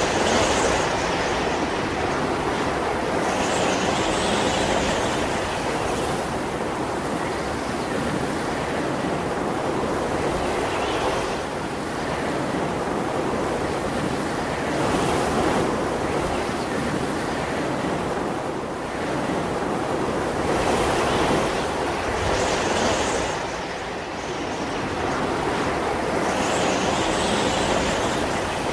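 Sea surf: waves breaking and washing up the shore in a continuous rush, swelling every few seconds as each new wave comes in.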